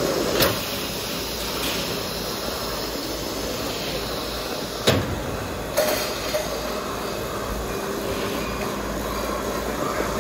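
Empty aluminium cans jostling and clinking against each other on a running slat conveyor, a steady clattering din of a beverage canning line, with a few sharp knocks about half a second in and again near five and six seconds.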